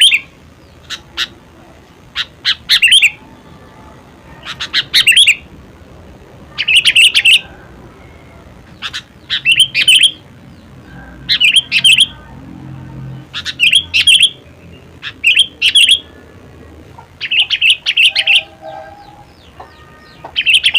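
Sooty-headed bulbul (kutilang) singing: short phrases of a few quick chirping notes, repeated every one and a half to two seconds.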